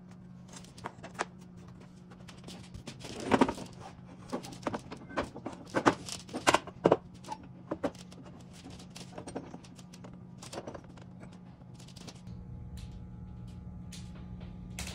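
Scattered knocks and clicks of a wooden cabinet door and clamps being handled on a table saw top, loudest between about three and seven seconds in, over a steady low hum.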